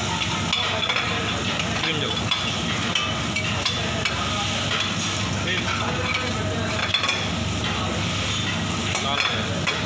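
Chopped onion, garlic and bell peppers sizzling as they sauté in a stainless steel frying pan over a gas flame turned up high, with a metal spoon stirring and clicking against the pan.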